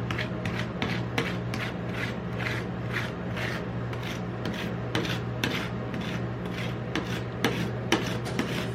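Metal spatulas scraping and chopping on a frozen steel ice cream roll plate, working potato chips into the ice cream base, in a steady run of strokes about twice a second. A steady low hum runs underneath.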